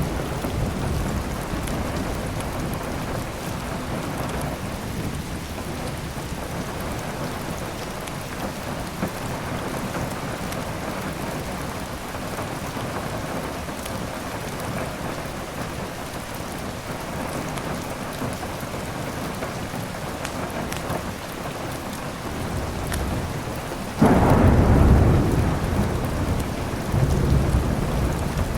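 Steady heavy rain with thunder. A low rumble at the start fades away, then a sudden loud thunderclap comes near the end and rolls on.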